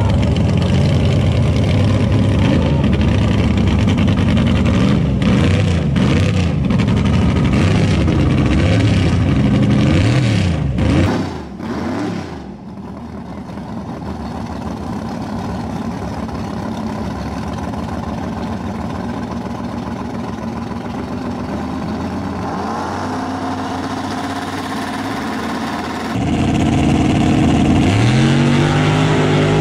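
Drag race cars' engines running loudly at the starting line, revving up and down. Partway through the sound drops to a steadier, quieter engine note. Near the end it gets loud again as an engine revs up with rising pitch.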